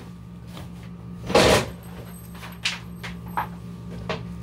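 Handling noise from a workbench: a loud rustling knock about a second and a half in, then a few light, sharp clicks as a cable and tools are picked up.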